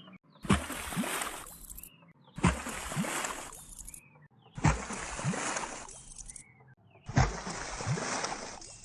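A recorded water splash sound effect played four times, each a sharp splash with a fading wash after it. Each repeat is slowed down further than the one before, so it sounds a little lower and duller each time.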